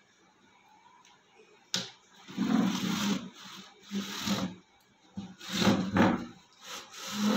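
A chair's legs scraping and juddering across a stone floor as a toddler pushes it, in a string of short drags that starts with a knock about two seconds in.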